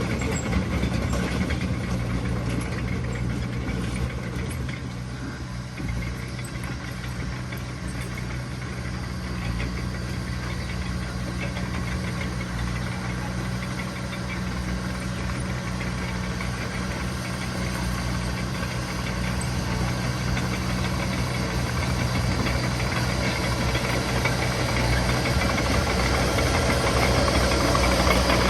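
Diesel engine of heavy earthmoving machinery running steadily, growing louder toward the end.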